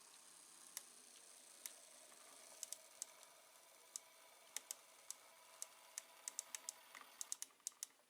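Z-scale model V60 locomotive running, its small three-pole motor giving a faint steady whine, with sharp light clicks that come more often in the second half. The whine stops just before the end.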